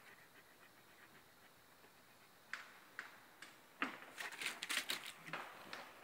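German Shepherd panting in short, breathy puffs, about four or five a second, over the last two seconds, after a few faint clicks.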